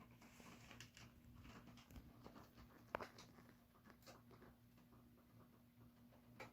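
Near silence: a low steady hum with faint scattered clicks, and one sharper click about three seconds in.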